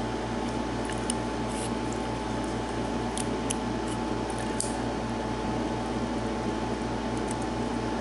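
Steady background hum with a few faint, sharp clicks of steel tweezers against a brass padlock's pin chambers as the top pins are picked out.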